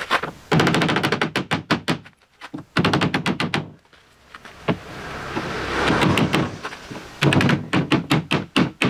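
Hammer tapping PVC pipe connectors down into holes in a plywood deck, in quick runs of light knocks several a second with short pauses between. A rush of noise swells and fades in the middle.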